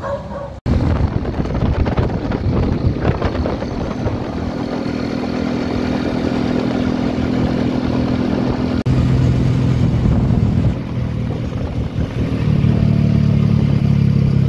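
Small motorcycle engine running steadily while riding at speed, with the rush of wind and road noise on the handlebar-mounted microphone. The sound drops out for an instant about half a second in and again near the middle, where the engine note jumps.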